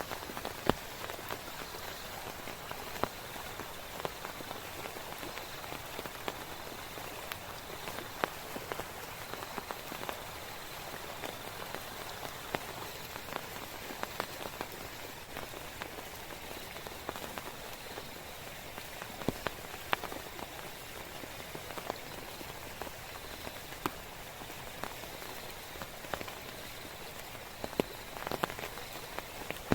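Heavy rain falling steadily, with many individual drops striking close by as sharp, irregular taps.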